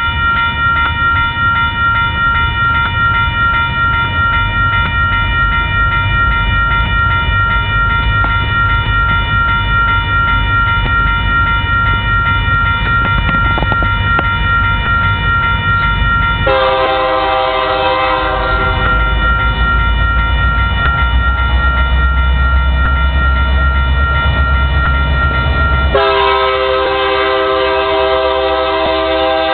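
Railroad grade-crossing bell ringing steadily over a low rumble as a train approaches. The lead locomotive, a Union Pacific SD9043AC, sounds its multi-note horn in a short blast a little past halfway, then a long blast near the end.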